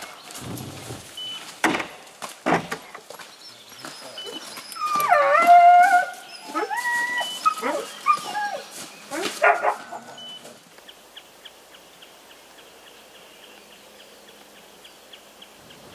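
Hunting laika giving a short run of excited yelps and barks, pitch sliding down on several calls, loudest about five seconds in. Before it, footsteps crunching on wet snow.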